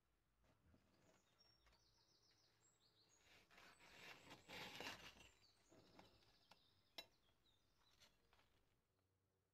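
Faint crunching and crackling of a crisp baked meringue shell as a table knife cuts through the pavlova, loudest about four to five seconds in, with one sharp click near seven seconds.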